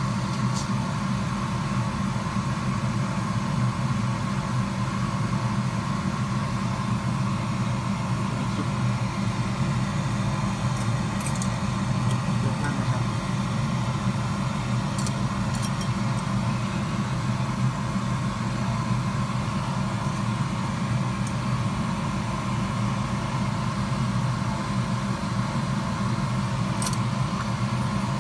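A steady machine hum from the repair bench, even throughout, with a few faint, light metallic clicks from tweezers and small tools handled on the bench.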